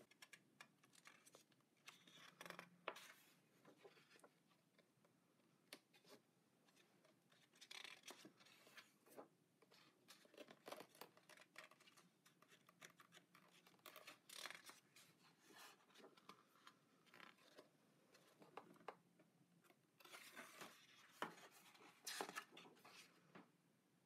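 Near silence with faint, scattered paper rustles and soft handling noises as pages of a large illustration book are turned by hand.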